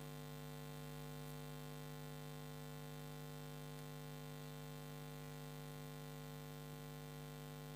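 Steady electrical mains hum in the recording, a low buzzing drone with a ladder of higher overtones that does not change, under faint hiss.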